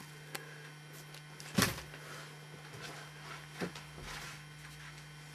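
Handling and moving-about noise: a few knocks and bumps, the loudest about a second and a half in, over a steady low hum.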